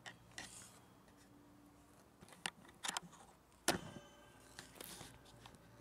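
Camera knocking and rubbing against metal railings: several sharp metallic clicks and taps, the loudest about two-thirds in, followed by a brief metallic ring.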